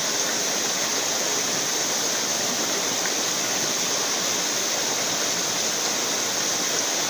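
River water rushing steadily in a shallow stream, an even, unbroken hiss.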